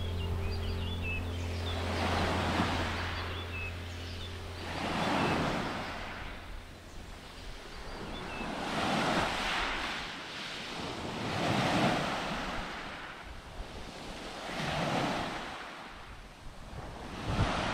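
Sea waves washing onto a beach, five swells rising and falling about every three seconds. Low steady music tones fade out over the first few seconds and come back right at the end.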